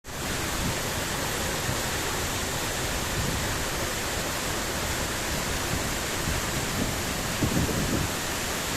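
Waterfall running: a steady, even rush of falling water, with a few low bumps near the end.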